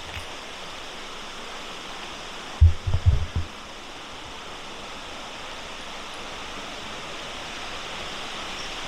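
Creek water rushing steadily, with a brief cluster of low, dull thumps about three seconds in.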